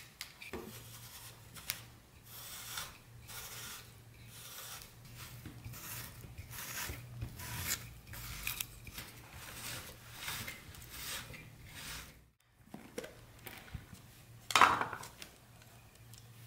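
Zucchini being twisted through a handheld Fullstar spiralizer's blade: a run of scratchy, rasping cuts about two a second. Near the end, a single loud knock.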